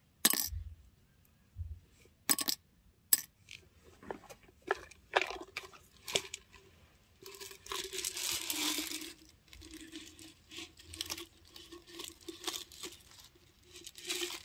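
Small plastic decoden parts clicking and tapping as they are handled and dropped into a small clear plastic container, with a stretch of plastic crinkling about seven seconds in and lighter rustling after it.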